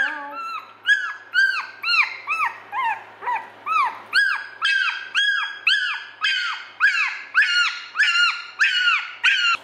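Two-week-old goldendoodle puppy crying over and over, high-pitched cries that each rise and fall, about two a second, while a DNA swab is rubbed in its mouth. These are the cries of a hungry, unhappy puppy.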